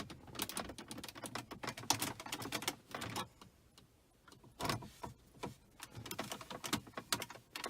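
Flathead screwdriver prying at a 2005 Chrysler 300's plastic center dashboard bezel: a run of irregular clicks and taps of metal on plastic trim, with a pause of about a second in the middle.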